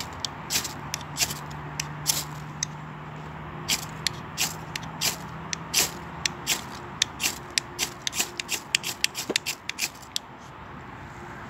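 A knife scraped again and again down a ferrocerium rod, throwing sparks onto fatwood and pine-cone tinder to light a fire: a long run of short rasping strikes that come faster in the second half.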